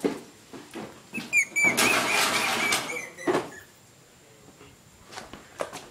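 Chain-link pen gate being opened: a sharp knock and a few rattles, then about a second of scraping with a high squeak, and another knock.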